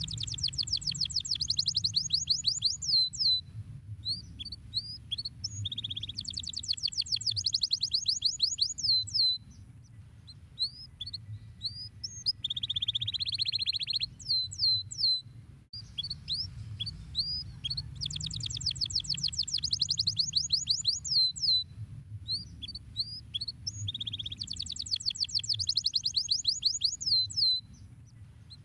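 Domestic canary singing long phrases of rapid high trills and quick sweeping chirps, with a lower buzzing roll partway through. The same song sequence starts over about halfway through, over a steady low hum.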